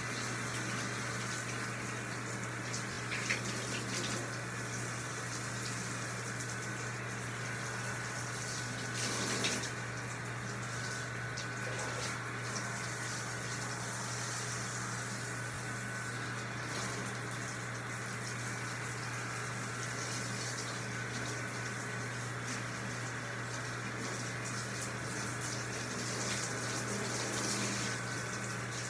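Handheld shower head spraying water as a dog is rinsed in a bathtub: a steady rush of water over a steady low hum, with a short louder burst about nine and a half seconds in.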